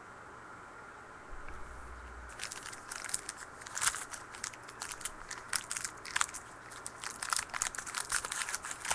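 Trading-card pack wrappers being torn open and crumpled. A dense, irregular run of crackles starts about two seconds in and grows louder.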